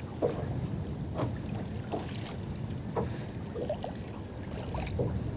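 Small waves lapping against the hull of a small boat at anchor, with irregular slaps about once a second over a low wind rumble on the microphone.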